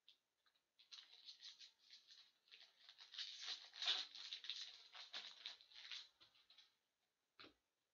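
A 2018-19 SP Authentic hockey card pack's foil wrapper being torn open and crinkled as the cards are pulled out: a run of rapid, crackly rustles, with one more short crackle near the end.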